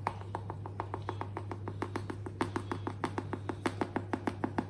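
Fast, even light tapping, about six taps a second and louder in the second half, as cocoa powder is knocked out and measured into a cup. A steady low hum runs underneath.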